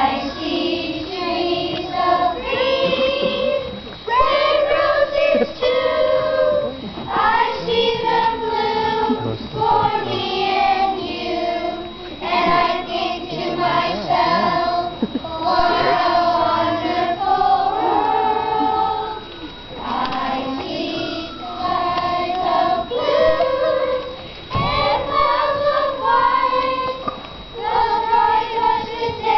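A class of fourth-grade children singing together as a choir: a slow song in long held phrases, with short pauses between lines.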